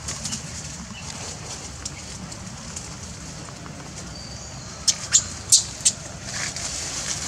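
Outdoor ambience with a steady high hiss; about five seconds in, four sharp clicks or snaps come in quick succession, a few tenths of a second apart.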